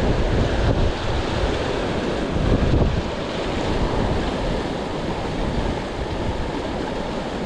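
Fast river water rushing over boulders, a steady whitewater roar, with wind buffeting the microphone.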